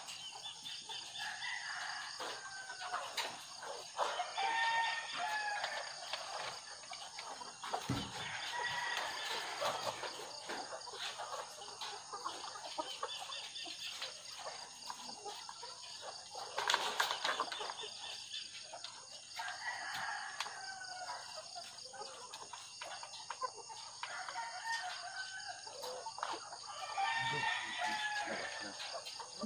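Caged white ready-to-lay pullets clucking and calling, with drawn-out calls every few seconds, and a short loud burst of noise a little past halfway.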